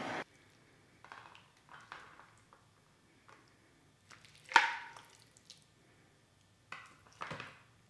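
A kitchen torch's hiss cuts off at the very start. Then come a few soft wet squelches and light knocks, the loudest about four and a half seconds in, as saucy braised pork humba is spooned onto a banana leaf.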